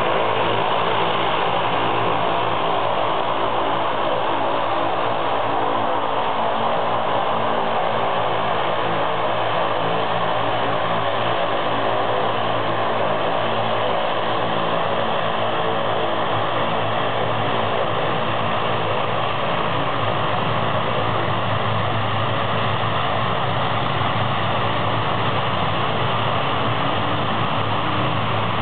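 Aeroperlas ATR twin-turboprop airliner taxiing, its engines and propellers running steadily: a loud, constant drone with several steady propeller tones.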